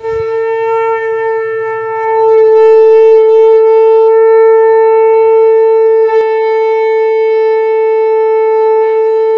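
Conch shell (shankha) blown in one long, steady note that swells louder about two seconds in and is held unbroken.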